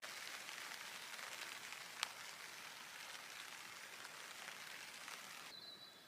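Light rain pattering, a steady hiss of fine ticks with one sharper tick about two seconds in. Near the end it gives way to a quieter background with a bird chirping.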